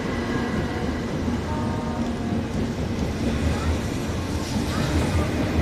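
Shinkansen 923-type Doctor Yellow inspection train pulling away from the platform at low speed. The cars roll past with a steady low rumble and a faint hum that grows a little louder near the end.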